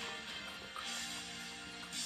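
Background music playing, steady held tones with no singing.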